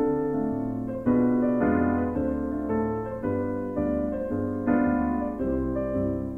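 Background piano music: chords struck about twice a second, each fading before the next, over low bass notes.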